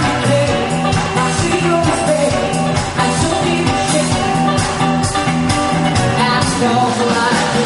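Rock band playing a song with a singer, over a steady bass line and drums.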